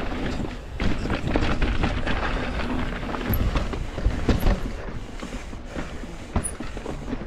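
Mountain bike riding down a dirt and rock trail: tyres rolling over the ground, with frequent short rattles and knocks from the bike throughout.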